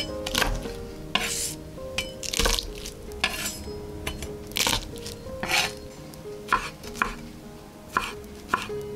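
Chef's knife cutting garlic cloves on an end-grain wooden cutting board: irregular knocks of the blade on the wood and short rasping strokes, turning to quicker, sharper knocks in the second half as the garlic is minced. Faint background music plays underneath.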